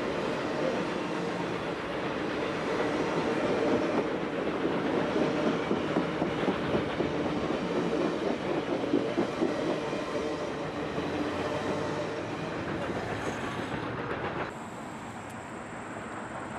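Reading Blue Mountain & Northern passenger cars rolling along the track, their wheels rumbling and clicking over the rail joints, heard from aboard the train. About 14.5 s in, the sound drops suddenly to a quieter, steadier running noise.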